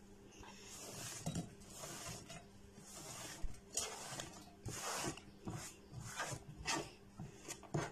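Sliced onion being swept by hand across a plastic cutting board into a glass bowl: a run of short, soft rustling scrapes with a few light clicks.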